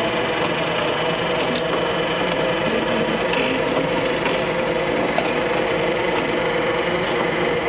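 Strautmann Giga-Vitesse forage wagon unloading silage, its tractor-driven unloading gear and the tractor engine running steadily under load: a constant mechanical drone with a steady pitch.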